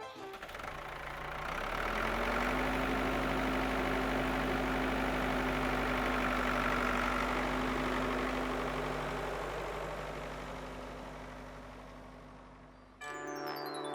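Tractor engine sound effect running steadily, swelling up over the first couple of seconds and then slowly fading out. Music cuts in near the end.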